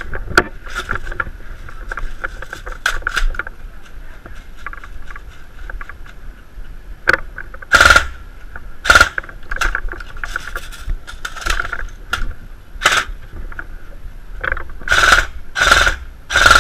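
Airsoft guns firing: irregular sharp pops, few at first, then louder and more frequent from about halfway on, over a faint steady high hum.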